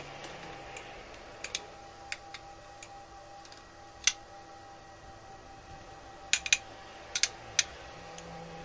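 A metal spoon clicking against a glass bowl of mashed potatoes while spices are spooned in and stirred: a scattering of short, separate clicks, the sharpest about four seconds in.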